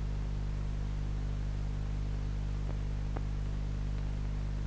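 Steady electrical hum with a stack of overtones under a soft even hiss, the background noise of an old film soundtrack, with two faint clicks past the middle.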